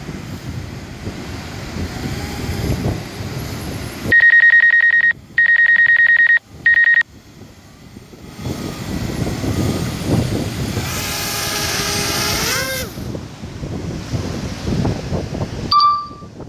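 Three loud, steady electronic warning beeps, each about a second long with short gaps, from the DJI Spark's control setup as a critical low-battery alert sounds. Wind and surf noise rush on the microphone around them, and a short higher beep comes near the end.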